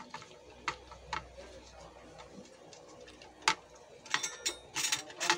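Sharp clicks and taps of a Siemens SIMATIC TP1500 Comfort panel's circuit board being handled and seated in its sheet-metal chassis: a few scattered clicks, then a quicker cluster of them near the end.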